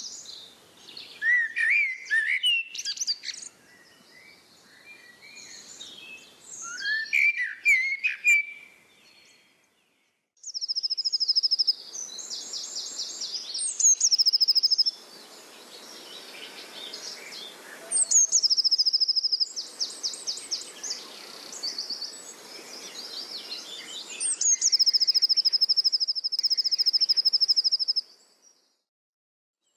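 Birdsong: assorted chirps and whistled notes sliding up and down, then, after a brief break about ten seconds in, a high, rapid trill repeated in several long phrases that start and stop abruptly.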